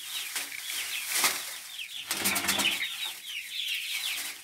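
Month-old French chickens peeping continuously, a dense chorus of short falling high-pitched peeps, with several brief wing flaps breaking through.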